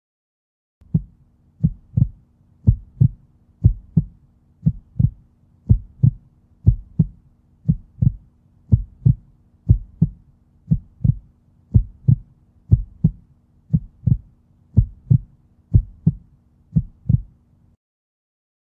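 Heartbeat sound effect: slow, evenly spaced double thumps, about one beat a second, over a low steady hum. It starts just under a second in and stops about a second before the end.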